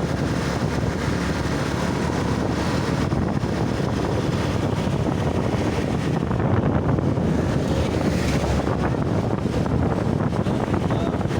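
Steady rumbling noise of wind buffeting the microphone over the sound of road traffic; the horn has stopped.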